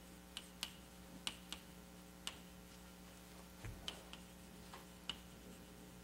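Faint, irregularly spaced small clicks, about nine of them, with one soft low thump about halfway through, over a steady low hum.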